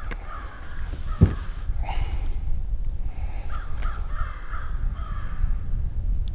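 Crows cawing, a run of harsh repeated calls at the start and another about halfway through, over a steady low rumble. A single sharp thump about a second in is the loudest sound.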